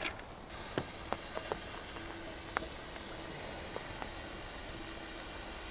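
Diced pancetta frying in a hot cast iron pan over campfire embers: a steady sizzle that starts about half a second in, with a few scattered pops.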